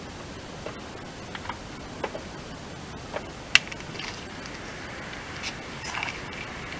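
Scattered small clicks and rustles of hands working behind a car's front wing at the side indicator, with one sharp click about halfway through, over a steady hiss.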